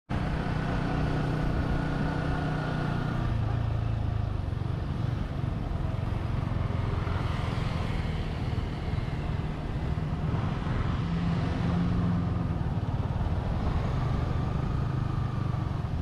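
Motorcycle riding on the road: steady engine and road noise, the engine note shifting a few times.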